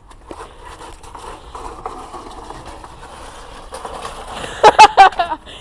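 Small wheels of a ride-on toy horse rumbling and rattling over brick paving as it rolls downhill, then a burst of loud, high cries near the end.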